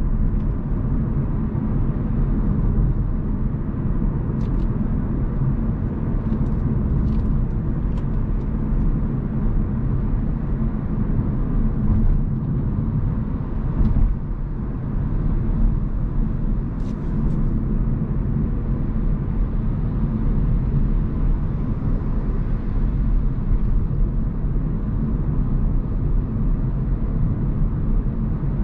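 Hyundai Kona Hybrid driving, a steady low rumble of road and tyre noise with a few faint clicks scattered through it.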